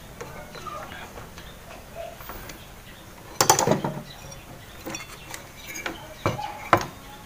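Amplifier board with an aluminium heatsink being handled and lifted out of a speaker cabinet: a loud metallic rattling clatter about halfway through, then two sharp knocks near the end.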